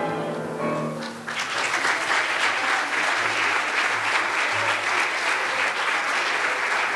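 The last held note of a children's choir song with piano dies away, then the congregation breaks into steady applause about a second in.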